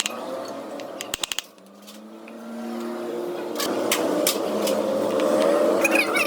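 A motor or machine running with a steady hum. It dips in level after a quick run of clicks about a second in, then builds back up, with a few sharp clicks later on.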